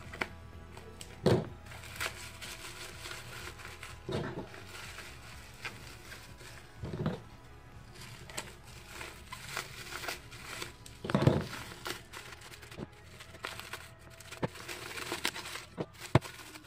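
Bubble-wrap packaging crinkling and rustling as it is cut open with scissors, with several louder handling bumps and a few sharp clicks near the end. Soft background music plays throughout.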